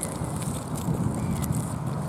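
Long fingernails tapping with sharp, irregular clicks, over a steady low rush of river water.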